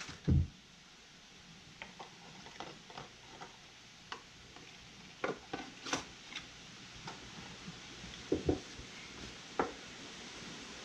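A dull knock about half a second in, then scattered light metallic clicks, taps and clinks of hand tools and small engine parts handled on a workbench, as old bearing inserts are worked out of a connecting rod clamped in a bench vise.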